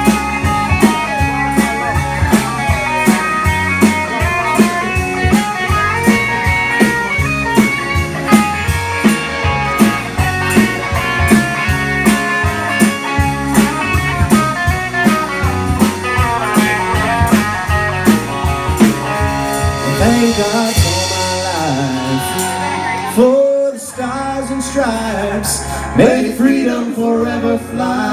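Live band playing an instrumental passage of a country-rock song: electric guitars and bass over a steady drum beat. About twenty seconds in, the drums stop and held guitar and bass chords ring on, with a brief dip a few seconds before the end.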